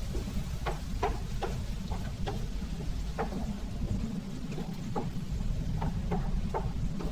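Food frying in oil in a pan: short, irregular crackles and pops over a steady low rumble.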